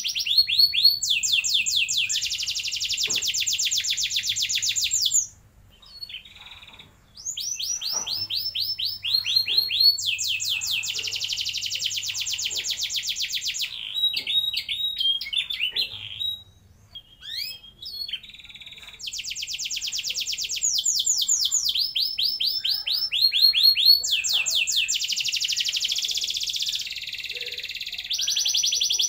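Domestic canary singing long rolling trills: fast repeated notes strung into rolls several seconds long, broken by short pauses about six seconds in and again around the middle.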